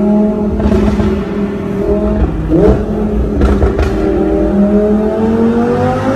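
Audi R8 V10 engine running through a Capristo exhaust. It holds steady, gives a quick blip with a few sharp exhaust cracks about two and a half seconds in, then its revs climb steadily near the end.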